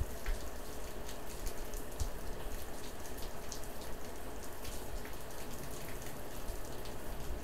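Steady rain falling, with scattered drops ticking close by, over a low rumble and a faint steady hum.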